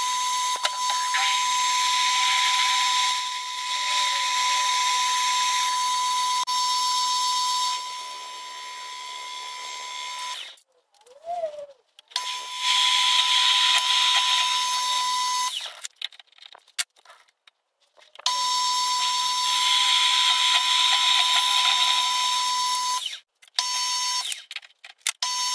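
Small metal lathe running with a steady high whine and a cutting hiss as a drill bit bores out a metal bushing. The lathe stops and starts several times, with short clicks and handling noises in the pauses.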